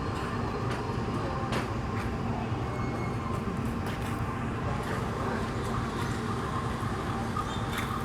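Train running with a steady rumble, with a few sharp clicks scattered over it.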